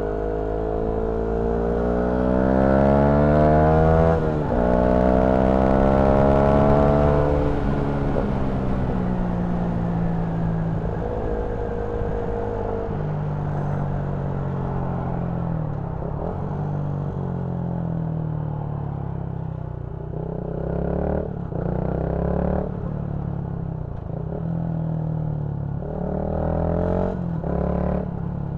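Motorcycle engine under hard acceleration, its pitch climbing to a quick upshift about four seconds in and climbing again. It then eases off and runs at a steadier road speed, with a few brief louder bursts in the last third.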